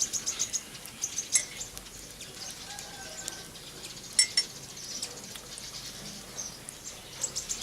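Small birds chirping intermittently in the background, with a couple of sharp clicks, the loudest about four seconds in.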